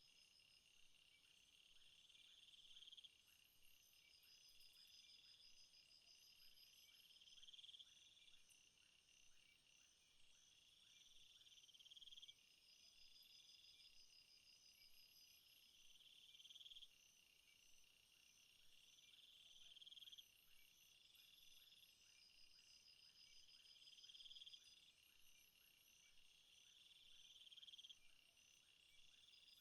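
Faint night insect chorus in rainforest: crickets and other insects trilling steadily at several high pitches, with one buzzing call that swells and stops abruptly roughly every four seconds.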